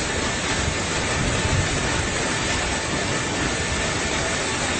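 Steady roar of an airliner heard inside the passenger cabin, an even rushing noise with a low rumble underneath.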